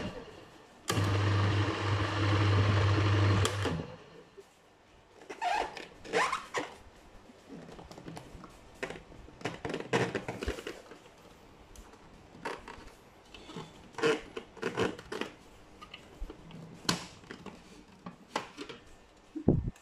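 Amway E-3288-J food processor's 230 W motor runs with a steady hum and whirr for about three seconds, starting about a second in, then switches off. After it come scattered light plastic clicks and knocks as the clear bowl's lid is handled and twisted.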